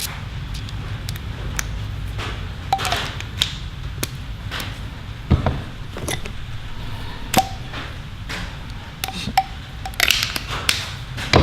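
Metal hand tools clicking and clinking as they are handled and pulled from a tool bag, irregular taps with a few brief metallic pings, over a steady low hum.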